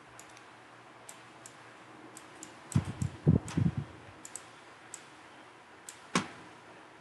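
Computer mouse clicking, with scattered single sharp clicks. A cluster of dull low thumps comes around the middle and is the loudest sound, and there is one sharper click near the end.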